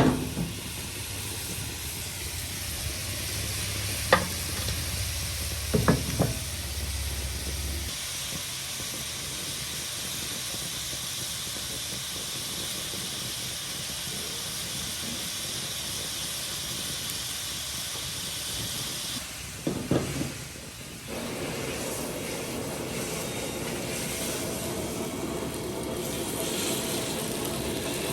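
Steady sizzling hiss of stingray cooking on the stove, with a few sharp knocks about four and six seconds in and again around twenty seconds.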